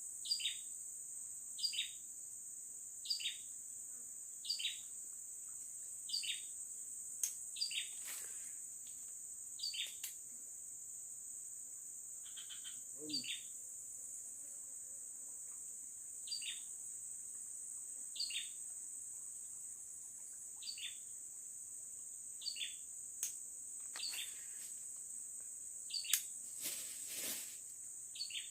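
Steady high-pitched drone of forest insects, with a bird repeating a short falling call about every second and a half. A few sharp clicks, and a brief noisy rustle near the end.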